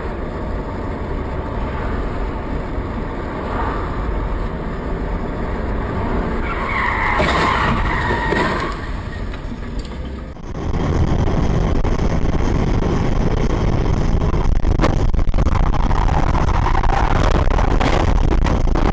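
Car driving recorded from a dashcam, with engine and road noise and a tyre squeal lasting about two seconds, starting about seven seconds in. At about ten seconds it cuts to a louder, heavier rumble with scattered knocks, a vehicle churning through dirt and dust off the road.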